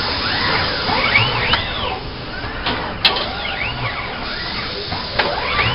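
Kawasaki industrial robot arms' servo motors whining as they move, with overlapping whines that rise and fall in pitch each time an arm speeds up and slows down, repeating every second or two. A sharp click about three seconds in, over a steady mechanical hum.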